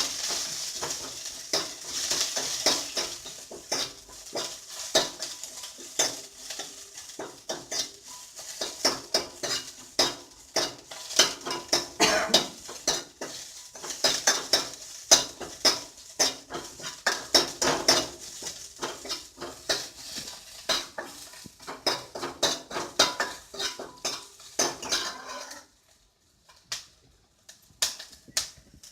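A spoon repeatedly scraping and clicking against a pan while stirring and sautéing shallots, ginger, garlic and green chillies in oil, with a light sizzle underneath. The stirring stops about 26 seconds in.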